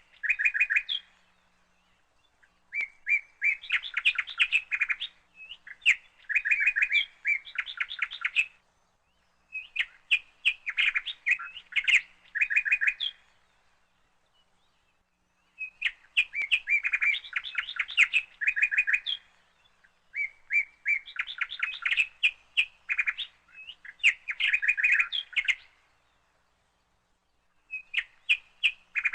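Songbird singing in repeated phrases of rapid, quick-fire chirps, each phrase a few seconds long, with short silent pauses between phrases.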